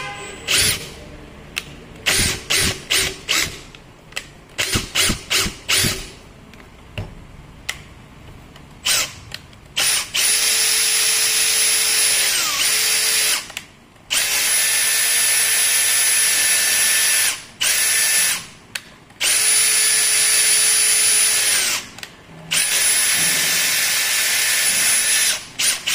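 Makita 18 V brushless cordless drill running with no load. It starts with a quick series of short trigger blips, then runs four times for about three seconds each, its motor whine coming up to speed and winding down at each start and stop.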